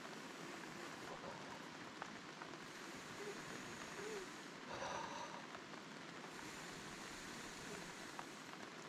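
Steady rain falling, a faint even patter with a few light drips or clicks and a brief louder rustle about five seconds in.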